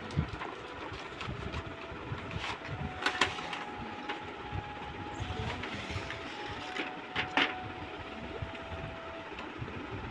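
Handling noise from a toy box being unboxed: irregular rustling and small knocks, with sharp clicks about three seconds in and again about seven seconds in.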